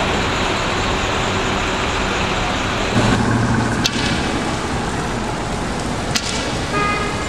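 Street traffic noise, a steady rumble and hiss with no voices. The noise changes character about three seconds in, and a couple of sharp clicks come later.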